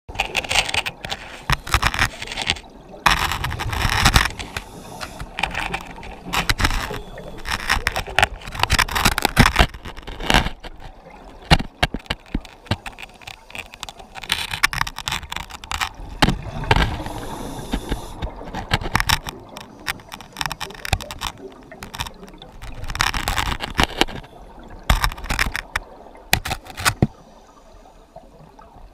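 Scuba diver's regulator breathing, recorded underwater: rushing bursts of exhaled bubbles every few seconds, with scattered clicks and crackles between them.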